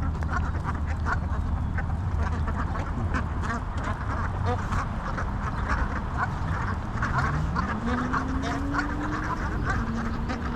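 A flock of ducks quacking excitedly, many short calls overlapping several times a second, over a steady low hum.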